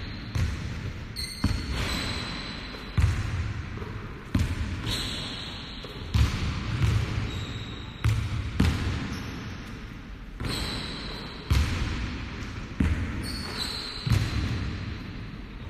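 A basketball bouncing on a hardwood gym floor, a thud every second or two, each bounce echoing in the hall.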